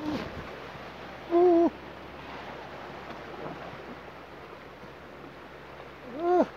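Steady wash of surf and wind, broken by short wordless vocal exclamations from a man: a brief one at the start, a held one about a second and a half in, and a rising-then-falling one near the end.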